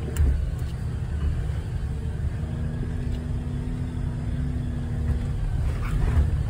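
Jeep driving slowly up a dirt trail, heard from inside the cabin: a steady low rumble, with a faint steady hum in the middle and a couple of small knocks near the start and near the end as it rolls over the bumps.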